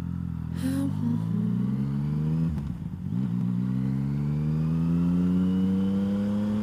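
Motorcycle engine accelerating away from a standstill, heard from the rider's seat: the pitch climbs through first gear, drops at an upshift about two and a half seconds in, then climbs steadily again in the next gear.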